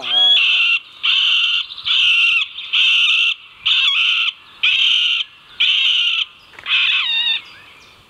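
Middle spotted woodpecker giving its slow laughing call series: about eight drawn-out calls, roughly one a second, the last one falling in pitch.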